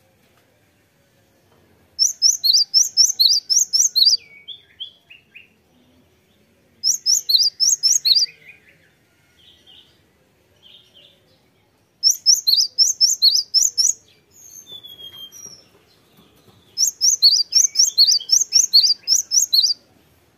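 Cinereous tit (gelatik batu) singing: four bursts of quick, sharp, high notes repeated about four times a second, each burst lasting about two seconds, with a few softer calls between them.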